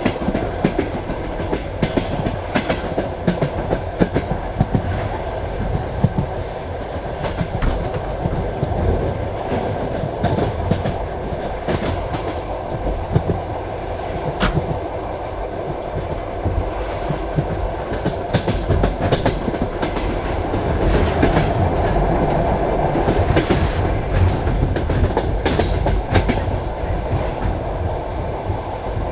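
Passenger train carriage running along the track: a steady rumble with the wheels clicking and knocking over rail joints. One sharp click comes about halfway, and the running gets louder for a few seconds later on.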